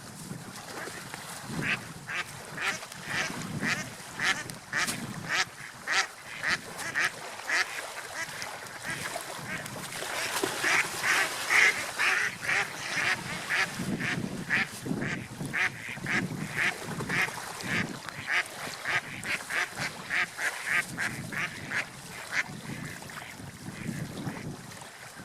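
Ducks quacking in a long run of short calls, two or three a second, loudest about halfway through.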